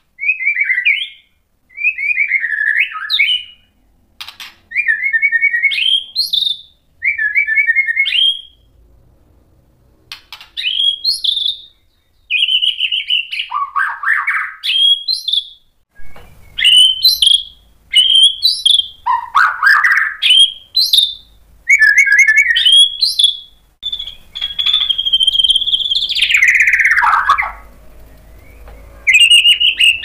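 White-rumped shama (murai batu) singing a steady run of fluty whistled phrases about a second apart, many ending in a sharp upward flick. Several long whistles slide down from high to low.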